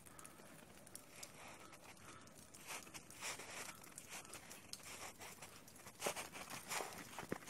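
Footsteps crunching in packed snow, an irregular series of crunches that grows louder and closer together in the last couple of seconds.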